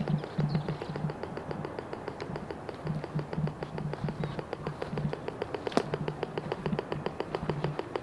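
Geosensis X3 pulse induction metal detector ticking from its speaker: a rapid, even train of ticks, about eight or nine a second, the stable threshold ticking of the machine with no target. A low hum comes and goes underneath, and there is one sharper click a little before the middle.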